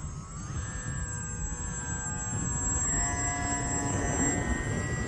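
HobbyZone Aeroscout's electric motor and propeller whining in flight, the pitch stepping up twice as the throttle is opened. A low rumble of wind buffets the microphone underneath.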